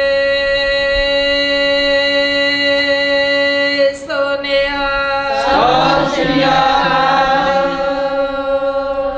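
A steady drone note with many overtones is held throughout. From about five and a half seconds in, a group of voices joins it, singing together in a devotional chant.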